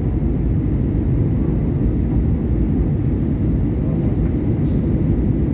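Steady low rumble of a jet airliner's engines and rushing air, heard inside the cabin during the descent on final approach.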